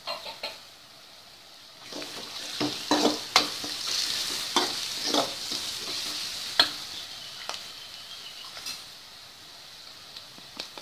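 Sliced onions, curry leaves and green chillies with freshly ground pepper, cumin and garlic sizzling in hot oil in a wok, while a metal ladle stirs and scrapes against the pan with repeated knocks. The stirring is busiest in the middle and eases off near the end.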